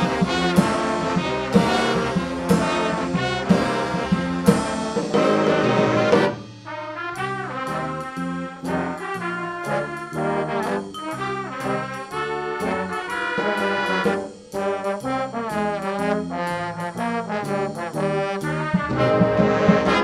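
School jazz big band playing, with trombones and trumpets to the fore. The full band plays loudly at first, then drops to a quieter, busier passage about six seconds in.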